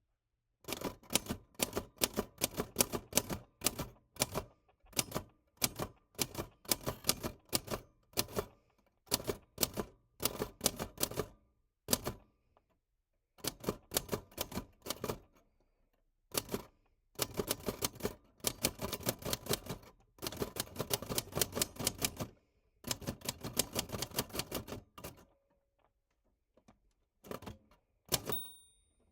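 Vintage typewriter being typed on: quick runs of sharp key strikes in bursts, with short pauses between them. A short bell ding sounds once near the end.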